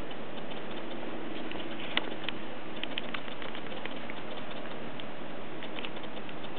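Crunching footsteps in snow: scattered light crunches, the sharpest about two seconds in, over a steady hiss.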